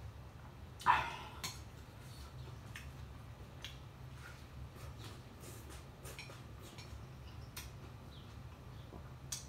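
Eating at the table: chopsticks and a ceramic spoon clicking and scraping against a glass bowl, with one louder knock about a second in and scattered small clicks after it.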